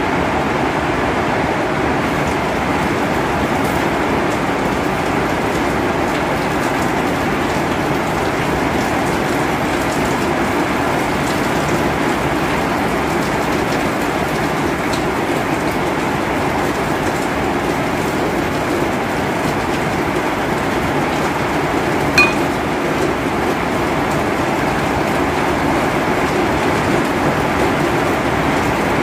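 Steady, even rushing noise with no breaks or changes in level, and a single sharp click about twenty-two seconds in.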